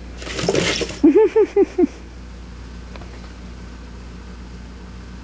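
A short burst of laughter: a breathy rush, then five quick 'ha' notes about a second in, followed by quiet room hum.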